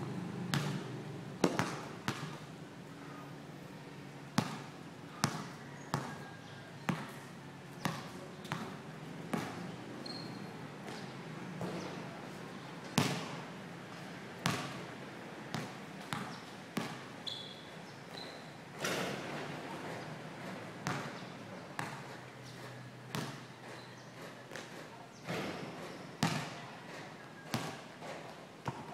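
Basketball being dribbled on a concrete court: irregular sharp bounces, roughly one a second, some noticeably louder than others.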